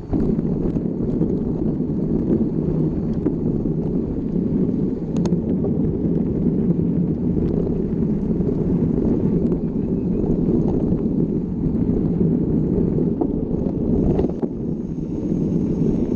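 Steady wind rumble on the microphone of a mountain bike rider's camera while riding, with a few sharp clicks and knocks scattered through it.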